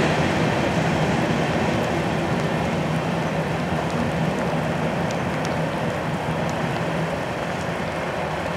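Freight train's wheels rolling on the rails as the last cars move away, a steady rumble slowly fading, with steady rain falling.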